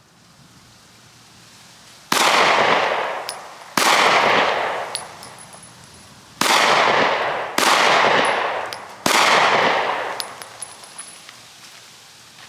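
Five 9mm pistol shots from a Glock 43X, fired singly and unevenly spaced, each a sharp crack followed by a long fading echo.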